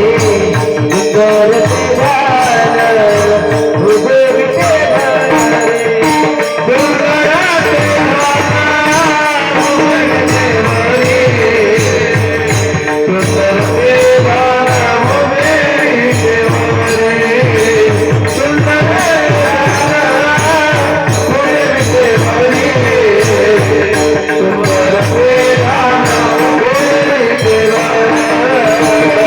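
Marathi devotional bhajan music: a wavering melody over a steady, continuous beat of jingling hand cymbals and drum.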